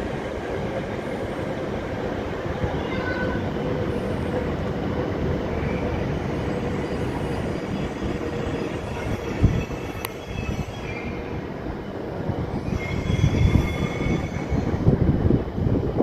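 Hokuriku Shinkansen Kagayaki train (E7/W7 series) running on the line, a steady rumbling rail noise, with thin high wheel squeals near the end.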